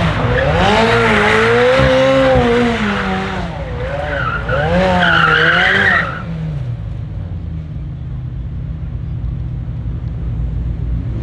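McLaren Senna's twin-turbocharged V8 revving up and down while the rear tyres spin and squeal in a smoky doughnut. The engine and squeal cut off abruptly about six seconds in, leaving a quieter low rumble.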